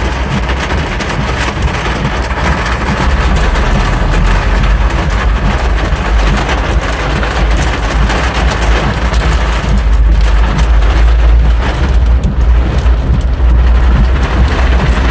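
Heavy rain drumming fast and densely on a car's roof and windshield, heard from inside the cabin over a deep rumble of the car rolling through flooded streets. It grows louder about two-thirds of the way through.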